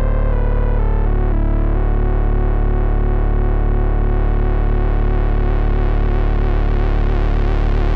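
Novation Bass Station II analog synthesizer playing a distorted sound over a held low bass note. A few higher notes change in the first couple of seconds, then the tone turns into a steady wavering texture that grows gradually brighter as the filter opens.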